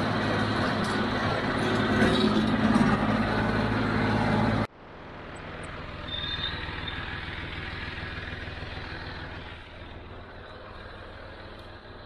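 John Deere 5055D tractor's three-cylinder diesel running steadily while driving a John Deere 348 square baler through hay. About four and a half seconds in the sound cuts off abruptly and comes back much quieter, a steady engine sound that drops a little further near the end.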